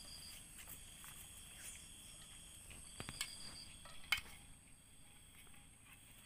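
Soft taps and scrapes of a steel plate against a steel mixing bowl as chopped onion and ginger are scraped into it, with a few sharp clicks about three and four seconds in, the loudest just after four seconds. A faint steady high hum runs underneath.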